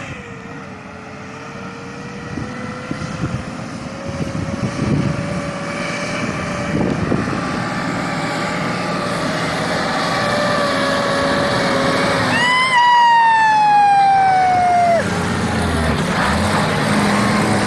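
IVECO dump truck running closer on a sand track, growing steadily louder with its engine pitch slowly rising. About twelve seconds in, its horn sounds for nearly three seconds, falling in pitch as the truck passes and then cutting off.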